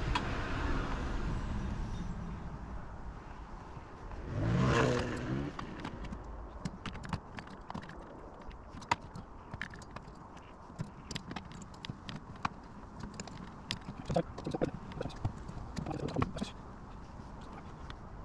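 Irregular sharp clicks and light knocks from hand tools and hardware while a dog gate is fitted to a door frame, with a short louder burst of sound about five seconds in.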